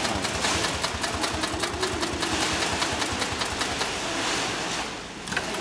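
Heavy-duty long-arm zigzag sailmaker's sewing machine (9366HM) running and stitching through layered sailcloth and webbing, a fast even clatter of needle strokes. It stops near the end with a single click.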